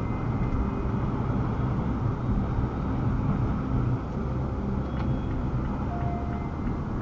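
Steady road noise from inside a moving car: a low engine and tyre rumble with no sharp events.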